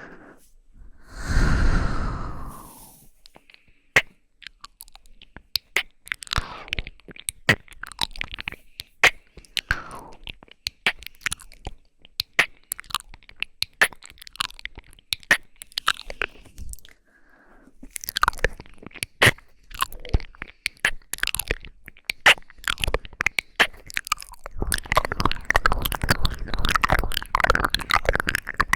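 Close-miked ASMR mouth sounds: a dense run of wet clicks and smacks from licking and lip noises, with a longer breathy sound about a second in and a thicker cluster near the end.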